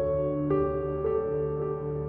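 Background music: slow, calm new-age piano-like notes over a steady low drone.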